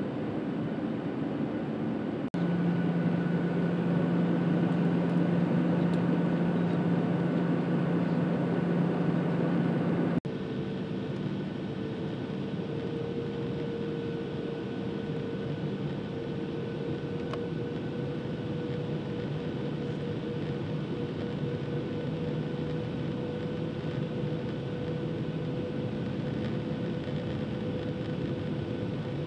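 Cabin noise of a Boeing 737-700 in flight: a steady rush of airflow and the drone of its CFM56 turbofan engines. It jumps louder about two seconds in and drops back about ten seconds in, with a steady hum that changes pitch at each jump.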